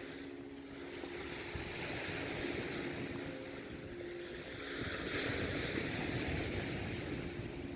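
Black Sea surf washing up on the shore, swelling twice for about two seconds each time, over a steady low hum like a distant motor.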